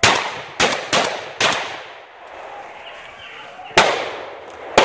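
Six gunshots fired in quick succession at a running swamp rabbit: four close together in the first second and a half, then two more a couple of seconds later. Each shot echoes briefly through the woods.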